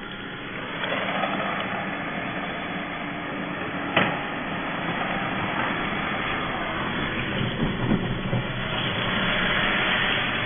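Steady rushing noise inside a car driving slowly over a wet, flooded road, with one sharp knock about four seconds in and a few smaller knocks near the end.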